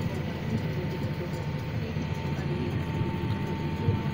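CLAAS Arion 620 tractor's diesel engine running steadily under load, heard from inside the cab: a low drone with a thin steady whine above it.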